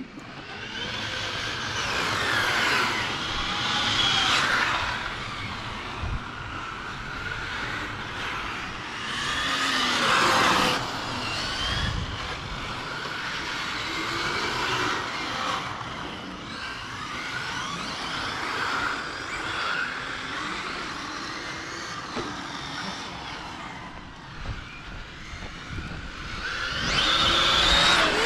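Radio-controlled model cars running on a track, their motors revving up and down in overlapping rising and falling whines, with louder swells as they pass.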